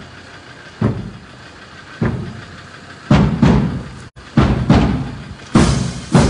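Brass band's marching drums beating time: single strokes about one a second at first, then quicker paired strokes from about three seconds in.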